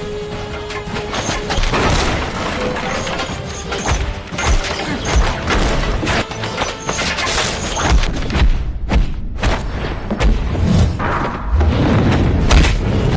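Martial-arts fight-scene soundtrack: dramatic film music under a rapid run of punch, kick and body-impact sound effects with low booming thuds.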